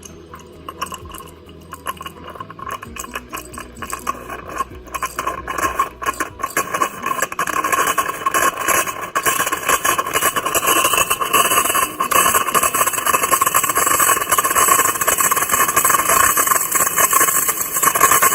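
Steam wand of a De'Longhi EC155 espresso machine letting off steam: spitting and crackling at first, then building to a loud steady hiss.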